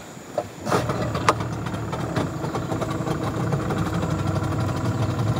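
A boat motor starts up about a second in and then runs steadily at low revs, with a few sharp knocks as it catches.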